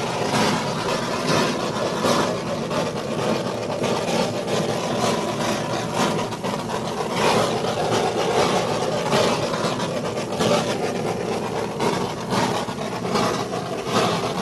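Handheld gas torch burning with a steady rushing flame, swept over wet acrylic pour paint to pop bubbles and bring up cells.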